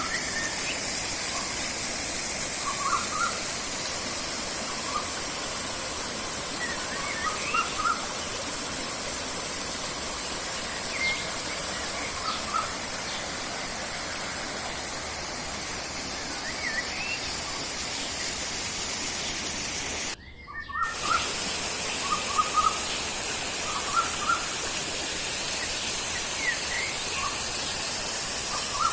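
Steady rushing of a river over a constant hiss, with small birds giving short chirps, in scattered clusters. The sound cuts out briefly about two-thirds of the way through.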